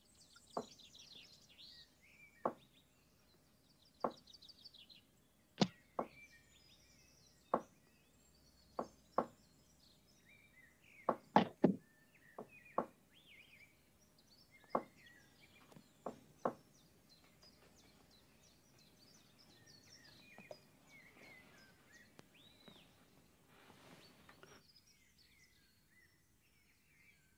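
Quiet, irregular sharp knocks or clicks, about fifteen of them over the first two-thirds, over faint high chirping. Near the end it drops to near silence.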